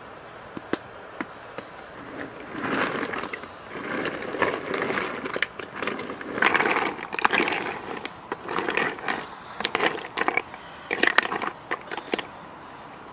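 Snail shells clattering and scraping against a blackened cooking pot and each other as a wooden stick stirs them, in irregular bursts with sharp clicks, starting about two and a half seconds in.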